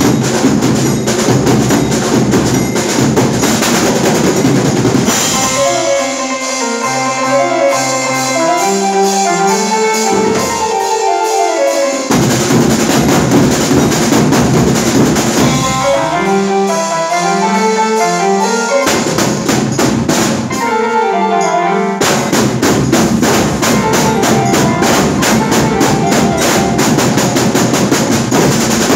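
Live band of drums and a keyboard playing a fast 'dholi' beat. Dense, rapid drumming on stand-mounted drums and a drum kit alternates twice with passages where a keyboard melody and bass line step along over lighter drumming.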